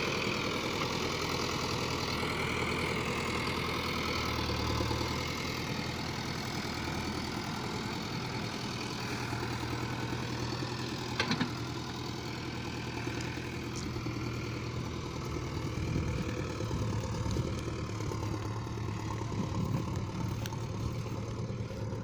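JCB 3DX backhoe loader's diesel engine running steadily while it digs and loads soil, with one short sharp knock about eleven seconds in.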